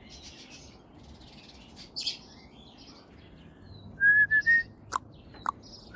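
Cockatiel chirping, with a short run of four clear whistled notes, each a little higher, about four seconds in, and a few sharp clicks.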